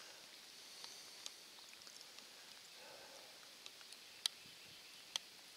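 Faint outdoor ambience: a steady high hiss with a few sharp ticks, the two loudest about four and five seconds in.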